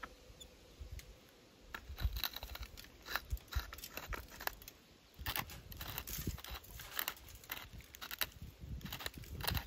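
Irregular crinkling and rustling with many small clicks and taps, with a couple of quieter gaps in the first half.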